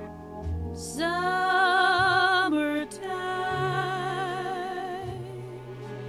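Music: a singer in an operatic style holds long notes with heavy vibrato, starting about a second in, over a slow, steady low accompaniment.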